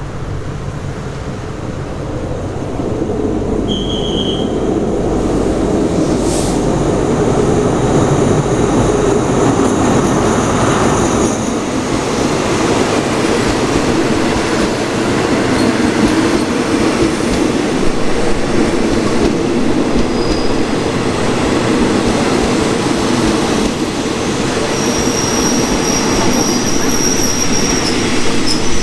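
Ordinary passenger train heard from inside a third-class coach as it runs along the track: a steady rumble of wheels and carriage that grows louder over the first several seconds, then holds. Brief high squeals come from the wheels about four seconds in and again near the end.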